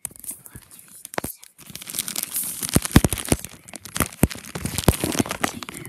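Crinkly plastic toy packaging being crumpled and torn by hand: a dense run of crackles and sharp snaps starting about a second and a half in, after a few scattered clicks.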